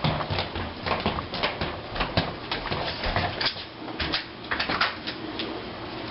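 Footsteps and handling noise: a dense run of irregular knocks, clicks and rustles.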